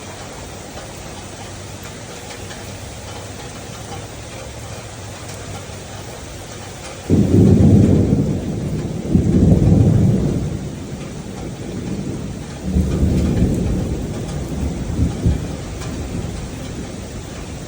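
Steady rain falling, then about seven seconds in a sudden loud low rumble of thunder that rolls on in three waves.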